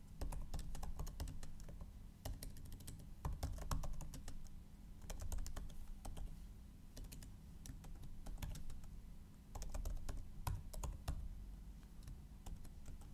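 Typing on a computer keyboard: quick key clicks in short bursts with brief pauses, over a faint steady low hum.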